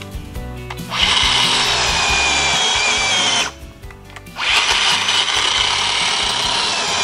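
Battery-powered chainsaw cutting into a wet log in two runs: the first starts about a second in, stops briefly past the middle, and the saw cuts again to the end, its motor whine steady. Background music plays underneath.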